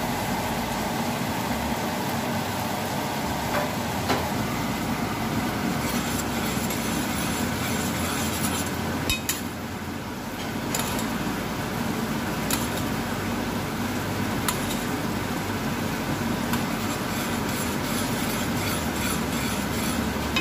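Bacon and onions sizzling in a frying pan, with scattered pops. After a short dip about halfway, a sugar glaze for ham bubbling at the boil in a small steel saucepan, stirred with a metal spoon.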